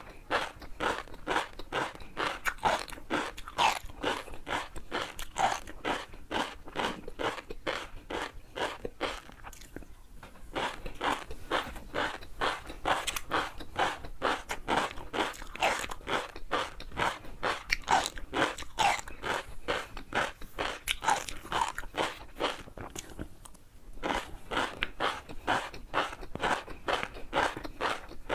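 Close-miked chewing of crunchy food: crisp crunching bites at about three a second, with short pauses about ten seconds in and again near the end.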